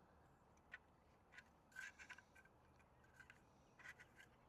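Near silence with a few faint, scattered light clicks and scrapes of small plastic parts being handled, as a bulb is fitted into a new mirror indicator lens.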